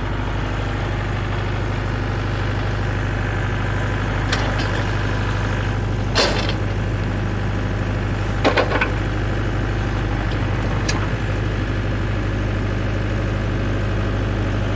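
Tractor engine running steadily, with a few short sharp knocks about four, six and eight and a half seconds in.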